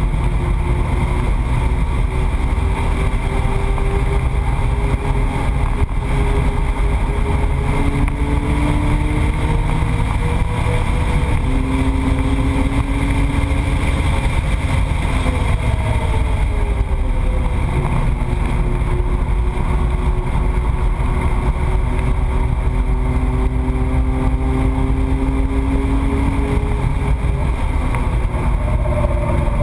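Car engine and road noise at track speed, a loud steady rumble with the engine pitch slowly rising and falling as the car speeds up and slows. Several times a separate steady hum holds for one to three seconds over it.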